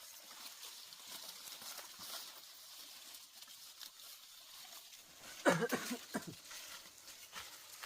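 Dry corn stalks and leaves rustling as ears of corn are picked by hand, with a short pitched cry or call about five and a half seconds in.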